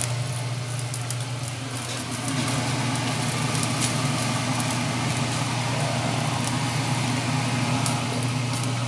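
Steady low hum of a running fan motor, with a few faint clicks over it.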